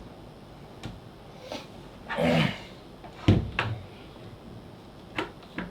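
Clicks and knocks of a graphics card's hard parts being handled during disassembly. There is a short scrape about two seconds in, and the loudest knock comes a little after three seconds.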